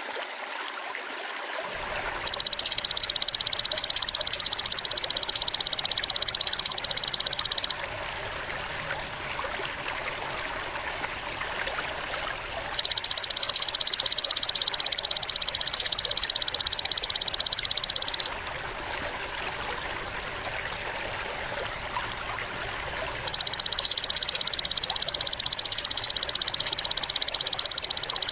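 Golden grasshopper (belalang emas) calling in three long, even, rapidly pulsed high buzzes of about five and a half seconds each, roughly ten seconds apart, over a steady background of running water.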